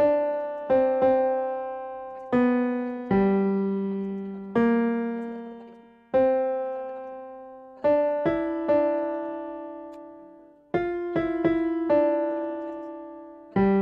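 Background piano music: slow single notes and chords, each struck and left to ring out and fade before the next.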